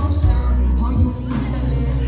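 Loud music with a heavy bass line and a singing voice.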